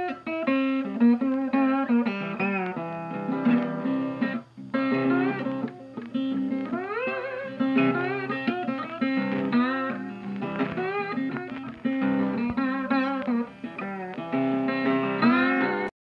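Guitar music with notes that slide and bend in pitch over a repeating low bass line; it stops abruptly at the end.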